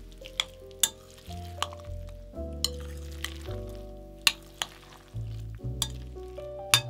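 A fork stirring and mashing a soft vegetable and raw-egg mixture in a glass bowl, with irregular sharp clinks as the fork hits the glass, over background music with a bass line.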